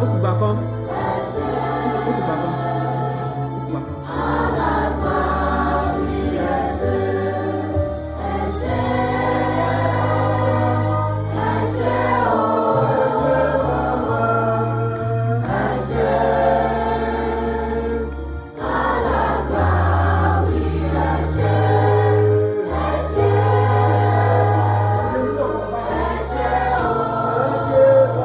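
Gospel choir song: many voices singing together over sustained bass notes and a regular beat.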